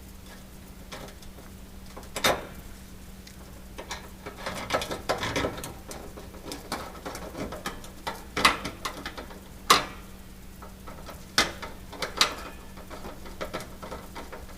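Irregular metal clicks, knocks and scrapes as a range's oven-door hinge is worked into its slot and its screws are started, with a few sharper knocks at intervals.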